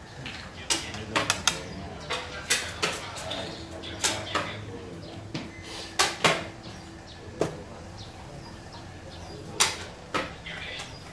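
Xiangqi pieces clicking on a wooden board and against one another as they are moved and handled, with the tap of a chess clock being pressed: about a dozen sharp clicks at irregular intervals.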